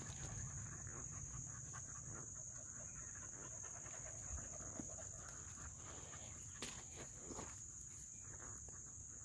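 Faint, steady high-pitched insect chorus, with soft scattered footsteps and scuffs on a sandy dirt road.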